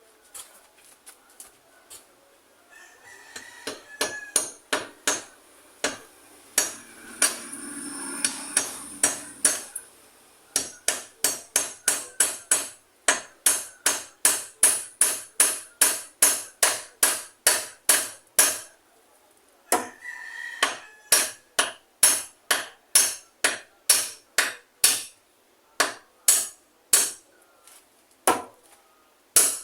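Hammer blows in a steady run of about two to three strikes a second, as in repair work, pausing briefly twice before starting again.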